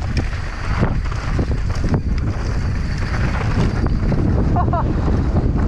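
Wind buffeting the microphone of a camera carried on a mountain bike at speed, over the rumble and rattle of the bike's tyres on a rough dirt trail.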